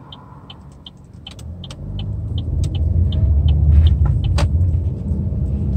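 Car engine and road rumble heard from inside the cabin, building up about two seconds in as the car pulls away from a stop. A turn signal clicks steadily, about two to three ticks a second, with one sharper click near the end.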